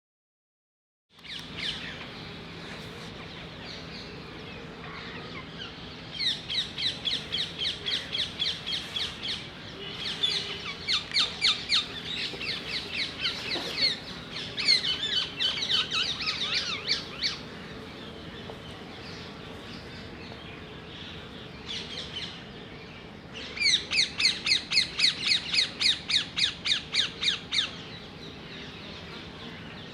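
A bird calling in rapid runs of harsh, repeated notes, about four a second, in four bouts of several seconds each. Under the calls runs a steady low hum of bees buzzing at a nest in a hollow tree.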